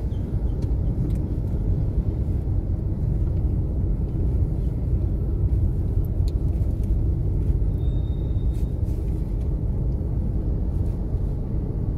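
Steady low road rumble of a moving car, engine and tyres, heard from inside the cabin, with a few faint ticks.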